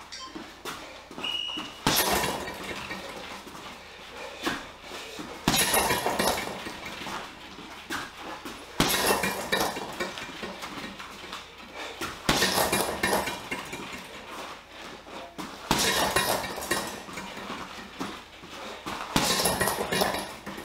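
Boxing gloves striking a Leone heavy bag in rapid combinations: six flurries of punches, each a quick run of thuds lasting about a second and a half, coming roughly every three and a half seconds with short pauses between.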